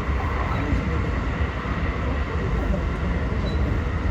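Running noise inside the carriage of a JR West 223 series 2000-subseries electric train at speed: a steady low rumble of wheels on rail with faint steady tones above it, which may include the train's Hitachi IGBT inverter and traction motors.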